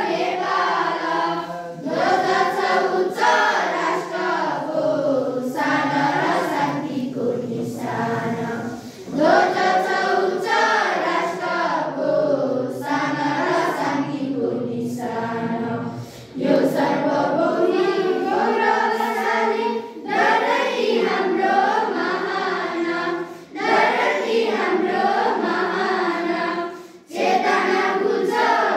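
A class of schoolchildren singing a song together in unison, phrase after phrase with short breaks for breath between lines.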